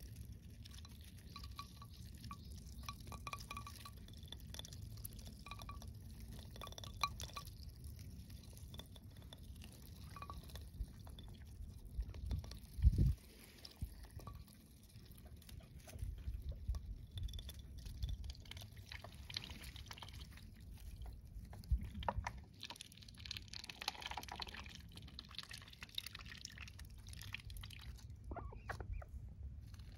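Ducks feeding from a bowl of shredded cabbage: soft, wet clicks and nibbles of their bills dabbling in the food, with faint, short, high tinkling tones now and then. A low thud about halfway through is the loudest sound.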